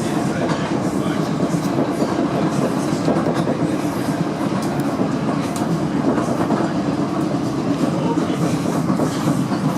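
Interior running noise of a Class 455 electric multiple unit under way: a steady rumble of wheels on track, with occasional light clicks from the rails.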